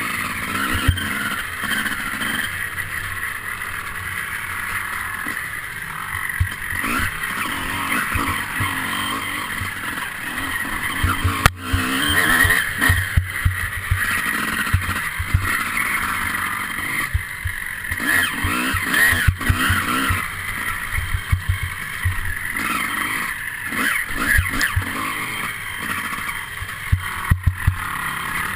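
Enduro motorcycle engine running as the bike rides a rough dirt trail, with frequent short low thumps.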